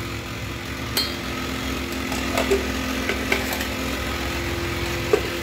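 A small motor hums steadily, with a few light clicks scattered through it.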